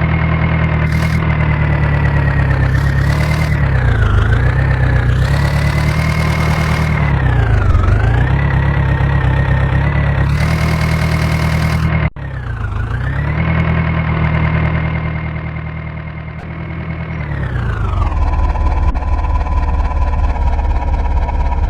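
A diesel engine runs loudly. Its pitch dips and recovers several times as it is loaded and revved. There is an abrupt break about twelve seconds in, and near the end the engine settles to a lower, steady speed.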